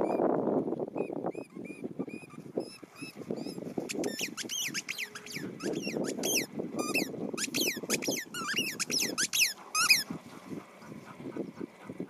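A dog chewing a squeaky ball, setting off a run of short high squeaks that come thick and fast from about four seconds in, over a low rustling noise.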